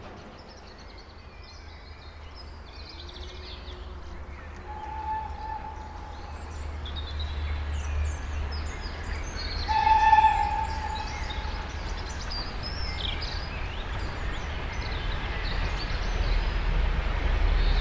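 Steam locomotive approaching: a low rumble that grows steadily louder, with two whistle blasts about five seconds apart, the second louder. Small birds sing throughout.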